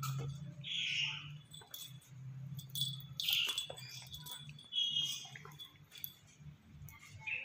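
Short high-pitched squeaks from a pet otter play-fighting with a kitten, one every couple of seconds, with light scuffling clicks. A steady low hum runs underneath.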